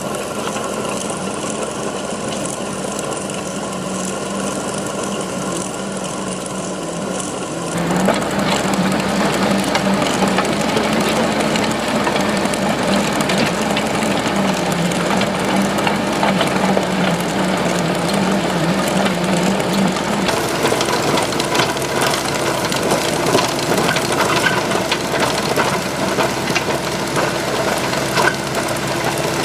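Excavator engine running steadily with a dense mechanical rattle, as a boom-mounted chain trencher works. The sound jumps louder and busier about eight seconds in and shifts again about twenty seconds in.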